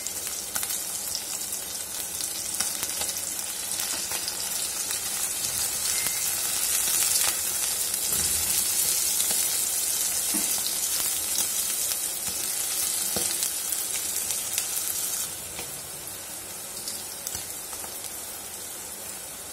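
Onion, carrot and green peas sizzling in hot oil in a nonstick kadai, stirred with a silicone spatula that gives a few light taps. The sizzle is steady, then drops noticeably quieter about fifteen seconds in.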